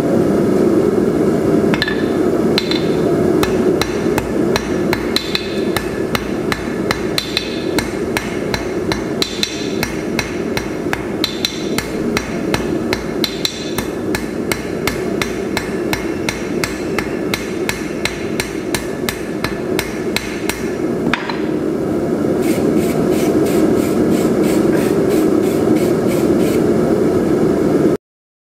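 Hand hammer forging red-hot stainless-steel bar stock on an anvil, drawing the chopstick tip to a round taper: steady, evenly paced blows at about three a second. A continuous low rumble runs underneath, and the sound cuts off suddenly near the end.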